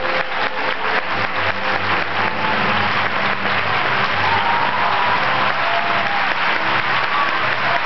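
Large theatre audience applauding steadily, a dense unbroken wash of clapping.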